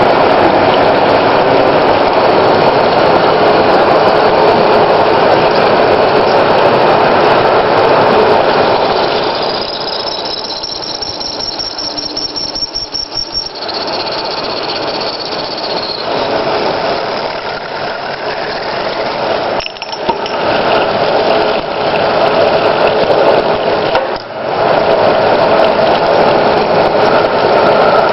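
Automatic lathe running through its machining cycle, a loud, continuous mechanical noise. About nine seconds in it turns quieter and a thin, high squeal sounds for several seconds, dropping slightly in pitch partway through. Near the end it settles back to the full steady noise, with a couple of brief dips.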